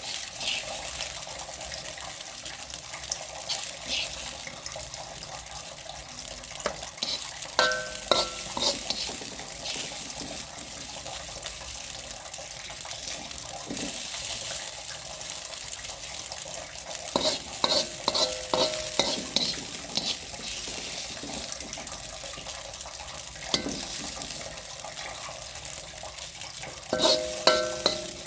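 Food frying in a pan with a steady sizzle, stirred with a spatula. Three short runs of ringing metal clinks and scrapes against the pan come about a quarter of the way in, past the middle, and near the end.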